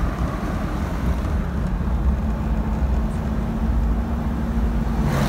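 A motor vehicle on the move: a steady low rumble of engine and road, with a steady hum joining about two seconds in.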